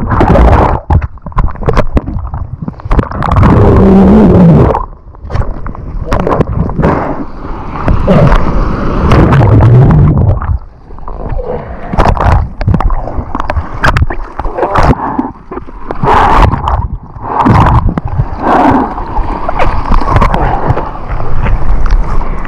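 Seawater sloshing, splashing and gurgling close over the microphone in irregular loud surges, with sharp crackles of spray.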